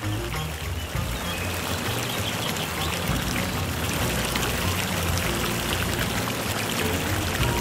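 Water pouring steadily over a small stone spillway into a natural swimming pool, a continuous splashing flow, with soft low music notes beneath it.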